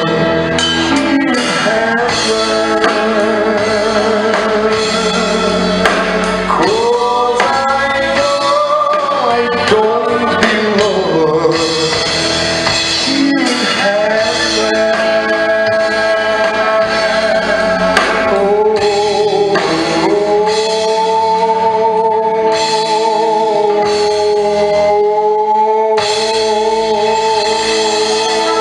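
A song: singing over instrumental backing with drums, the voice holding long notes in the last third.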